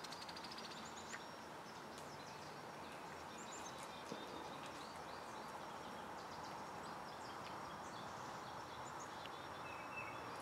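Small birds chirping and trilling now and then, faint over a steady hiss.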